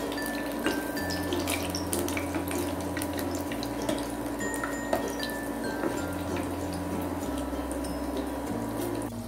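Mushroom Manchurian balls deep-frying in hot oil: a steady sizzle with many small crackles and pops.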